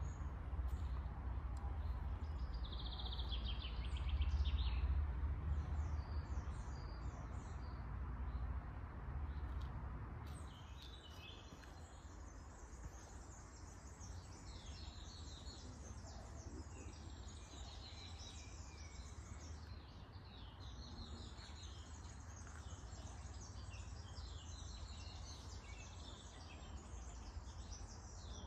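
Songbirds singing and chirping in leafy woodland, several birds overlapping, thicker in the second half. Under them a low rumble that dies away about ten seconds in.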